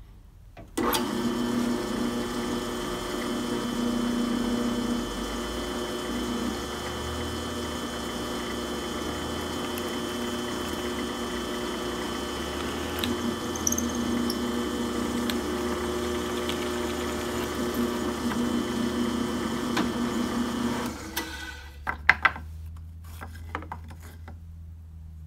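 Benchtop drill press starting up and running steadily for about twenty seconds as its bit bores through a wooden block into a metal pipe held inside it, then switched off and winding down. A few sharp clacks follow as the block and pipe are handled.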